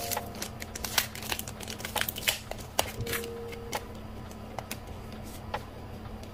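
Clear plastic cellophane sleeves holding a postcard and vintage postage stamps crinkling as they are handled, a run of quick crackles and clicks that thins out after about three seconds.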